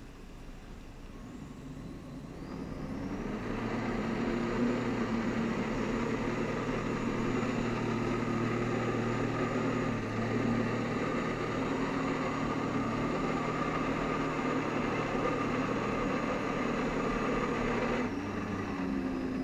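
Jet ski engine throttling up a few seconds in, running steadily at high power over churning water, then throttling back near the end. The throttle feeds the water jet that lifts a flyboard rider.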